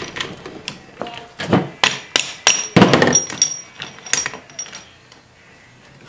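Metal clinks and knocks of a Yamaha YZ250 two-stroke's gearbox shafts and gears being worked out of the aluminium crankcase half as one piece. A quick run of sharp metallic clinks, some ringing briefly, the loudest about three seconds in.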